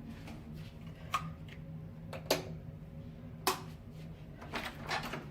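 A few sharp clicks and knocks, spaced about a second apart with a small cluster near the end, over a steady low hum.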